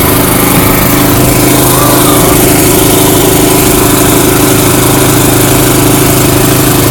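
An engine idling steadily, a constant loud drone with no change in speed.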